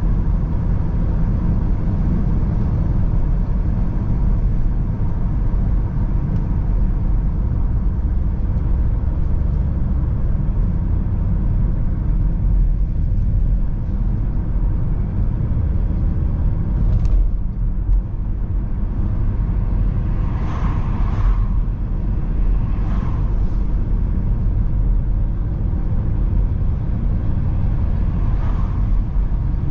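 Steady low rumble of a car's engine and tyres heard from inside the cabin while driving, with a few brief faint sounds in the second half.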